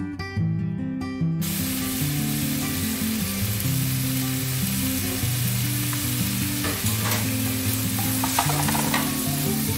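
Sliced onions sizzling in hot oil in a kadai while being stirred with a spatula. The sizzle sets in about a second and a half in, with a few short scrapes of the spatula against the pan late on, and background music plays low underneath.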